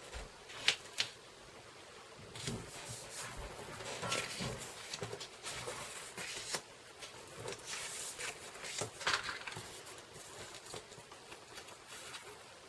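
Paper and cardstock being handled: soft rustling and scattered small taps and clicks, the sharpest two close together about a second in.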